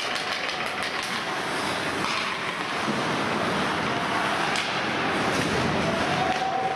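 Hockey game in play: a steady, noisy wash of rink sound with a few short, sharp knocks.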